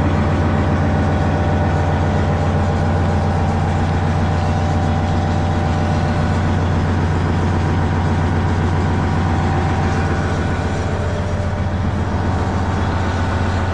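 Heavy diesel engine idling steadily with a deep, even hum.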